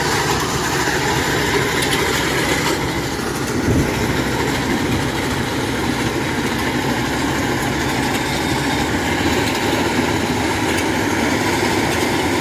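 Diesel engine of a Kubota DC-105X tracked rice combine harvester running steadily as the machine drives on its tracks close by.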